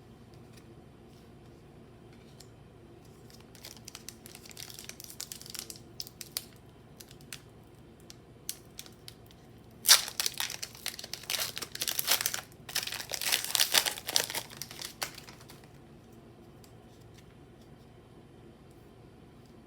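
Foil Pokémon booster pack wrapper being torn open and crinkled in the hands. There is light rustling first, then about five seconds of loud tearing and crinkling about halfway through.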